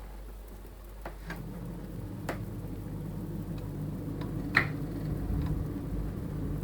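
Gas valve of a BAXI Main 5 14F gas boiler knocking: half a dozen sharp, irregular clicks, the loudest about four and a half seconds in. Under them a low hum starts about a second in and grows steadily louder as the boiler runs.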